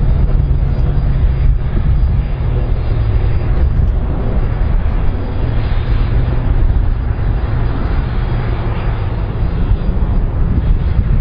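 Twin-engine Airbus jet airliner's engines running as it taxis, a steady loud jet rumble with a hiss above it.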